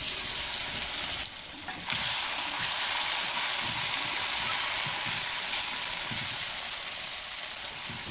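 Chicken pieces in onion-chilli masala sizzling in hot mustard oil and ghee in a kadai while being stirred, the kosha stage of slow-sautéing the meat. The sizzle drops briefly about a second in, then comes back louder.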